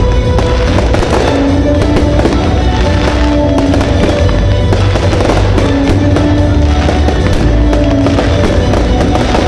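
Aerial fireworks bursting with a dense, continuous crackle of many small pops, heard over loud music with long held notes.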